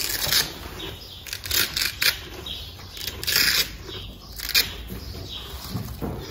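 Hook-and-loop (Velcro) straps of a horse's Equilibrium Tri-Zone cross-country boot being pulled open in several short rasping tears as the boot is taken off the leg.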